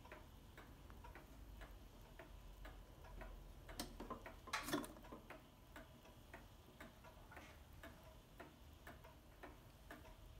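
Seikosha coil-chime wall clock's pendulum movement ticking steadily, a little over two ticks a second. About halfway through, a brief, louder rustle and knock rises over the ticking.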